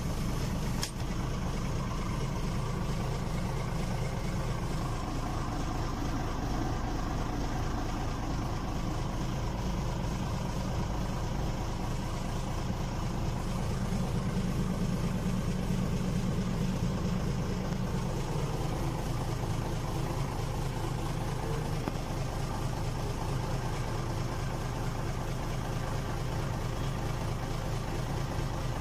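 Steady low rumble of a vehicle engine idling, a little louder around the middle.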